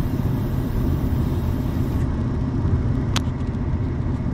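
Steady engine and road rumble inside a moving car's cabin, with a single sharp click about three seconds in.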